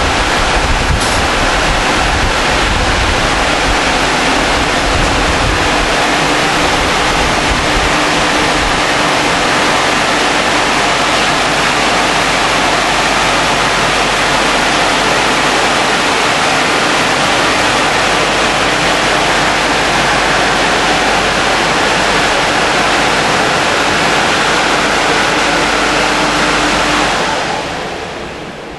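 Automatic rollover car wash gantry working over a van: a loud, steady rush of spray and air with a low steady hum under it, fading away near the end.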